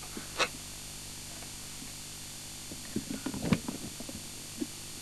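Steady hiss and low hum from a noisy VHS tape recording played back on a Grundig VS200. A short click comes about half a second in, and a few soft knocks and rustles come around three and a half seconds in.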